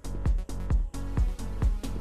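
Electronic music with a steady kick-drum beat, a little over two beats a second, under sustained synthesizer tones.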